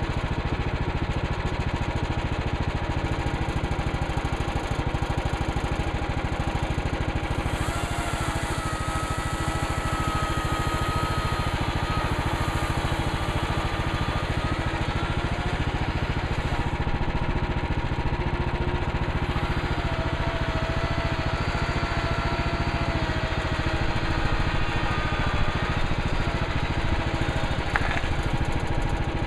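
Woodland Mills HM130 Max portable bandsaw sawmill running steadily on its gas engine while cutting red fir, with a thin whine that comes and goes in pitch.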